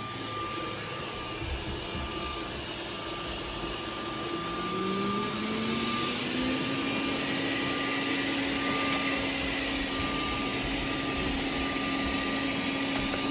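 Robot vacuum cleaners running on medium suction, a steady motor-and-airflow hum. About four seconds in, a motor whine rises in pitch and then holds steady.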